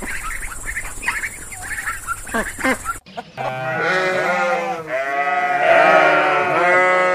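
Short, high chirping calls from a group of Egyptian geese. About three seconds in, they give way abruptly to a flock of sheep bleating, many overlapping voices, loudest near the end.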